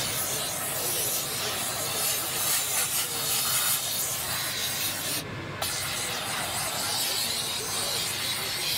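Hand-held nozzle of a Scarpavapor steam cleaner jetting steam onto a shoe, giving a steady hiss. The hiss cuts out briefly about five seconds in as the jet stops, then starts again.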